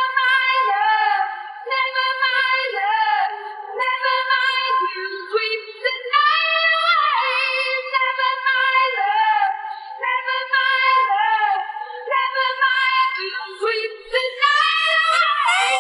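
Unaccompanied high singing voice holding long, sliding notes, with no instruments under it.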